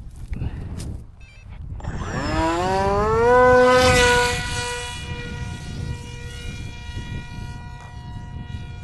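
Electric motor of a cardboard F-22 RC plane throttling up: a whine that rises in pitch for about a second and a half, then holds at a steady pitch as the plane runs at power.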